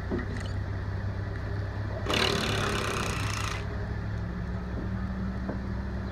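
Engine running steadily at low revs, most likely the machine moving the streetcar, with a broad rushing noise rising about two seconds in and fading a second and a half later.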